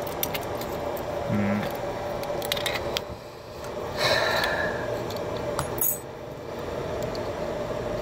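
Small metal clicks and rattles of an Allen wrench being worked into the screw of a Master Lock padlock, over a steady hum.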